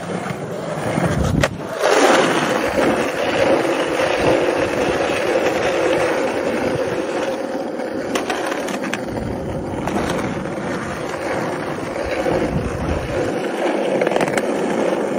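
Skateboard wheels rolling over rough concrete pavement with a steady rumble, after a few sharp clicks of the board in the first two seconds.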